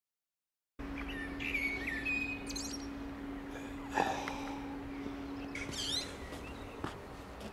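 Silence for almost a second, then birds chirping in short high calls and quick falling trills, over a steady low hum. A single sharp knock sounds about four seconds in.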